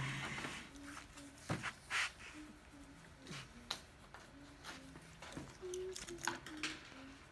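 Quiet classroom sound: a child's faint voice in a string of short, level notes, with scattered clicks and taps of pencils and supplies on tabletops.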